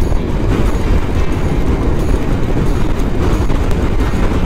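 Suzuki motorcycle under way on a wet road: a steady, loud rush of wind and rumble of engine and tyres.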